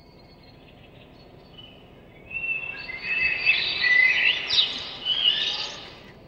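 Birds chirping and calling, many short whistled and gliding notes overlapping, starting about two seconds in, loudest in the middle and fading out near the end.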